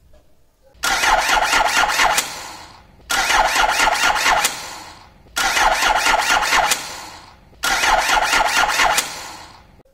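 Electric starter motor cranking an engine in four separate bursts, each a smooth, steady whirr that starts suddenly and winds down after about a second and a half. This is normal cranking: a healthy starter with a good battery charge and a sound cranking circuit.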